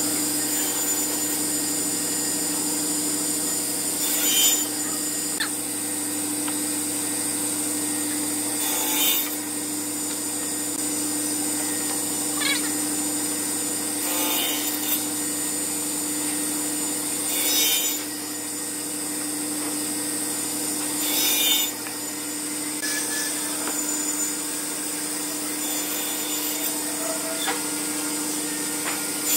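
Table saw with a toothed circular blade running at speed with a steady whine while cutting through solid wood blocks, with a short louder burst of cutting noise every four seconds or so.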